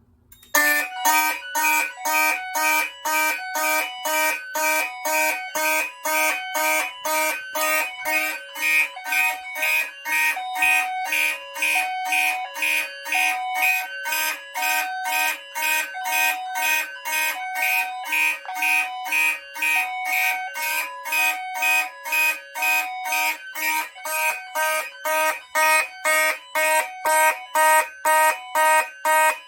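Fire alarm horns, including a Gentex Commander 3 mechanical horn and a Federal Signal 450D, sounding in march-time code at about two pulses a second. Under them a voice-evacuation speaker plays an alternating high-low tone. The signal starts about half a second in, once the panel's drill button is pressed.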